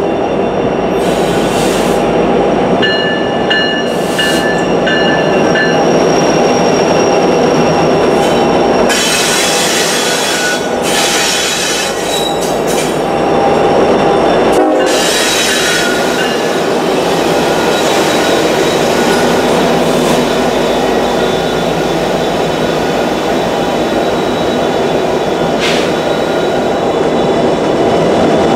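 A Norfolk Southern freight's lead diesel-electric locomotives, EMD SD70ACe and SD70ACU units followed by an SD40-2 and a GP38-3, passing close by, engines running over the rumble of wheels on rail. Brief high squealing tones come and go in the first few seconds.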